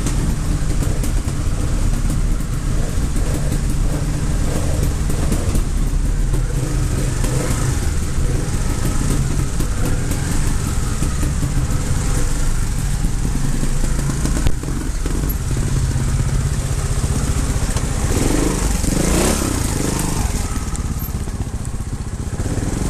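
Trials motorcycle engines running steadily as the bikes are ridden through a concrete culvert pipe, with a single sharp knock about halfway through and a brief surge in engine sound near the end.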